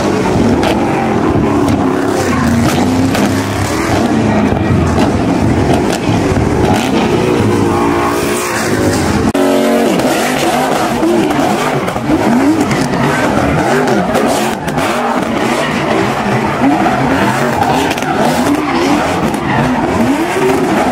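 Muscle car engines revving hard while tyres spin and squeal in burnouts and donuts. After about nine and a half seconds, one engine's note rises and falls over and over as the car circles.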